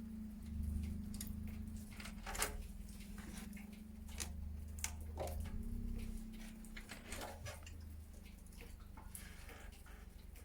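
Scattered metallic clicks and clinks of hand tools and loosened parts while a motorcycle is being taken apart, over a steady low hum.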